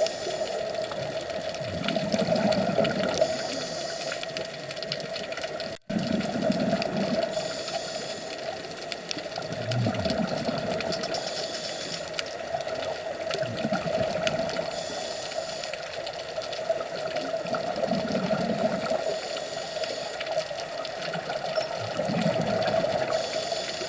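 Scuba diver breathing through a regulator, heard underwater through a camera housing: a hiss with each inhale and a low bubbling rumble with each exhale, one breath about every four seconds, over a steady hum. The sound drops out for an instant about six seconds in.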